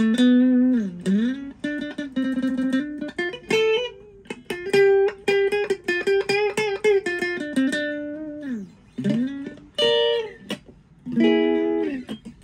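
Epiphone Les Paul SL electric guitar with both of its ceramic single-coil pickups selected, playing a single-note melodic line with slides and bends, then a few picked chords near the end.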